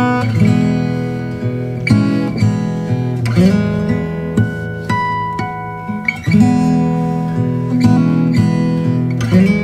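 Background music: acoustic guitar plucked and strummed, changing chords every second or two, with no singing.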